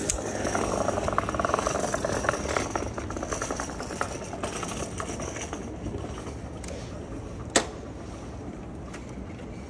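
City street noise heard from a moving bicycle: a steady rumble of tyres and wind, with people's voices in the first few seconds and one sharp click about seven and a half seconds in.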